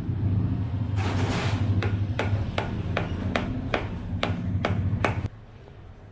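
Rubber mallet tapping about ten times, a few strikes a second, on a steel socket used as a driver to seat a new oil seal on a motorcycle's front fork tube. A steady low hum runs underneath and stops with the last tap.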